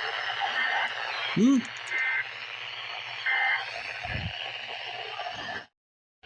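Radio static hissing over a steady hum, broken by three short two-tone electronic data bursts about a second and a half apart, like the coded header of an emergency alert. There is a brief loud swooping tone about a second and a half in, and the sound cuts off suddenly near the end.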